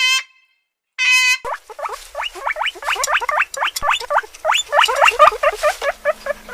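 Animal calls: two short, clear pitched calls about a second apart, then a fast chattering run of short rising squeaks, several a second, lasting to the end.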